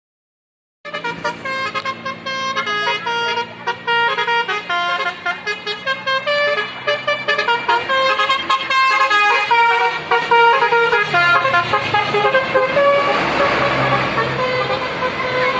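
Indonesian tour bus's Basuri telolet horn, a multi-tone air horn, playing a stepping melodic tune that starts about a second in. A rushing noise joins under the horn near the end.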